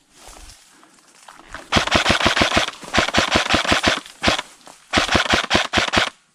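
Airsoft gun firing full-auto bursts, rapid clicking shots at about ten a second, in three or four strings with short pauses between them.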